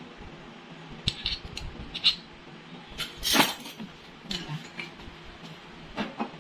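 Metal measuring spoon tapping and clinking against a stainless steel mixing bowl: a few light taps, then one louder clatter a little past halfway as the spoon is laid down across the bowl.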